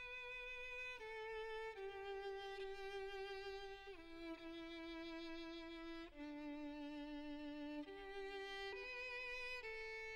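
Quiet music: a slow solo violin melody of long held notes with vibrato, stepping down in pitch through the first six seconds and then climbing back up.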